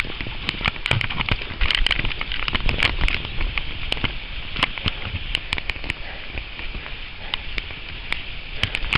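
Wind buffeting the camera microphone as a low rumble, with dense irregular crackling clicks throughout.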